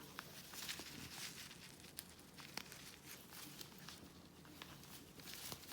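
Quiet room with faint rustling and a few scattered small clicks or taps.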